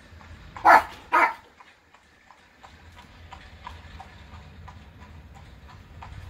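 A dog barks twice about a second in, then a horse's hooves clip-clop steadily on the road, about three hoofbeats a second, as a horse-drawn buggy passes, over a low rumble.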